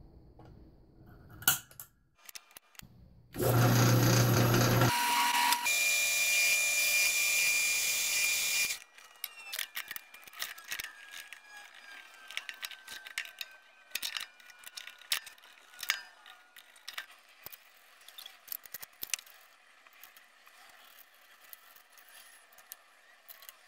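A drill boring through a clear Lexan (polycarbonate) plate for about five seconds, with a steady high squeal through the later part. Then a run of small clicks and taps as bolts, nuts and a metal switch box are fitted together by hand.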